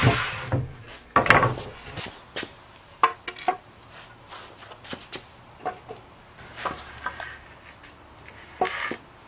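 Aromatic red cedar boards knocking and scraping on a concrete floor as they are set down and shifted into place, a series of separate wooden knocks with the loudest about a second in. A power saw's noise dies away at the very start.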